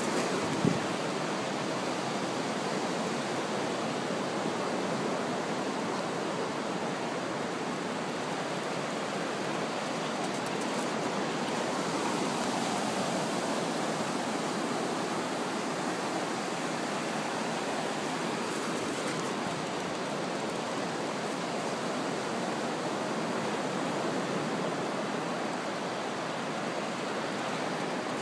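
Steady wash of ocean surf breaking on the shore. A single short bump sounds about half a second in.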